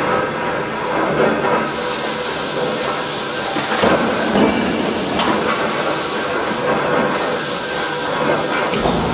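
Forging-plant machinery running: a loud, steady industrial din with a strong hiss and a few short knocks.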